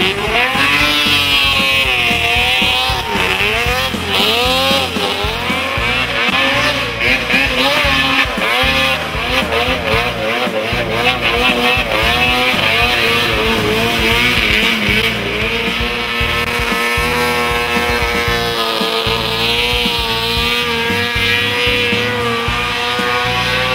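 Snowmobile engines running hard as the sleds skim across open water. The pitch rises and falls with the throttle in the first half, then holds high and nearly steady in the second half.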